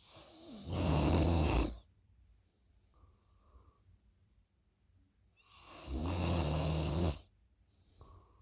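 A person snoring loudly in sleep: two rough, buzzing snores about five seconds apart, each lasting about a second, with softer breathing sounds between them.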